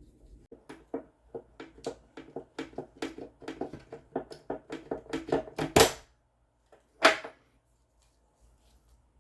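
Rapid, irregular clicks and taps of hard parts being handled during the disassembly of an espresso machine, with a loud knock near six seconds and another about a second later.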